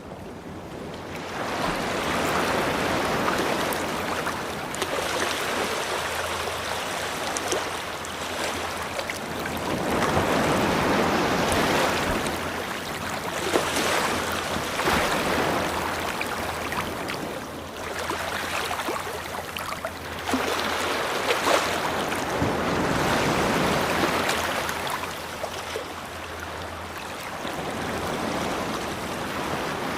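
Ocean waves breaking and washing up a shore, the surf swelling and fading every four to five seconds.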